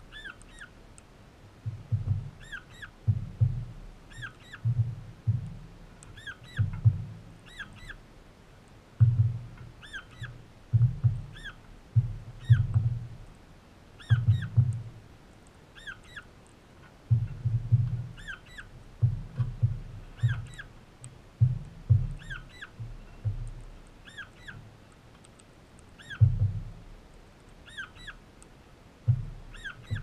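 Young crimson rosella pecking seed from a bowl right at the microphone, its beak knocking in irregular clusters of dull low thumps. Through it, a bird gives short high chirps over and over, about two a second.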